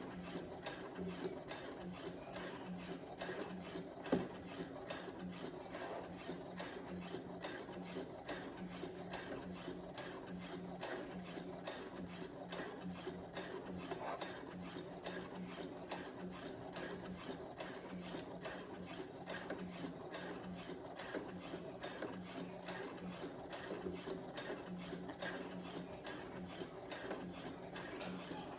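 Brother CS7000X computerized sewing machine running steadily while stitching a seam, its needle mechanism ticking rapidly and evenly over a motor hum. A single sharper click about four seconds in.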